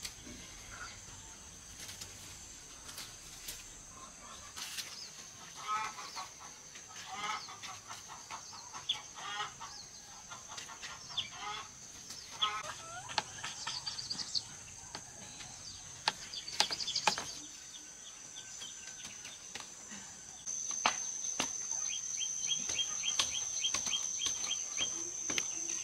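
Outdoor farm ambience: a steady high insect buzz that grows louder about twenty seconds in, short repeated bird calls, and scattered light knocks and rustles of ripe cucumbers being picked and handled.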